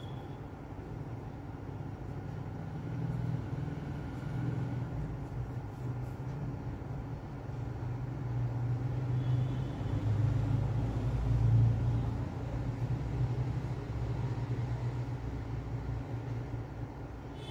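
Low, continuous motor rumble with a hum in it, growing louder in the middle and easing off toward the end.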